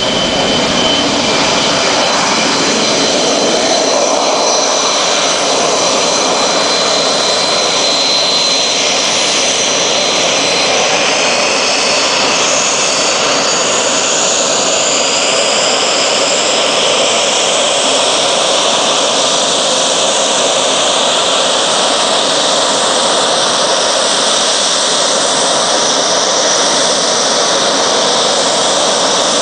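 Dassault Mirage fighter's SNECMA Atar turbojet running loud and steady on the runway. A high turbine whine rides over the roar and climbs in pitch about halfway through.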